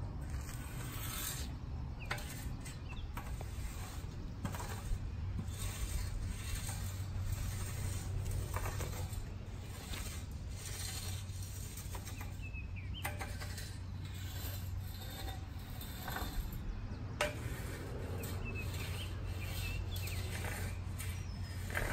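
A wide landscape rake dragged back and forth through grass, spreading lawn top dressing with repeated scraping strokes. A steady low rumble runs underneath.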